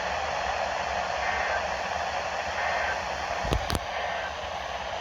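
Radio receiver on a weak signal, giving a steady static hiss. Three faint, short tones are barely audible through it, and two sharp clicks come about three and a half seconds in.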